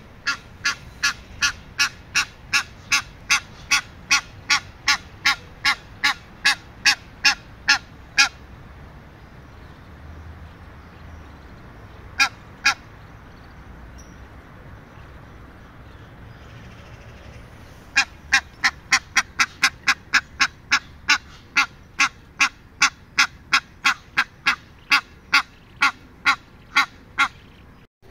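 Egyptian goose honking in long rapid series of short, harsh calls, about three a second. The calls break off for several seconds midway, with only a pair in the gap.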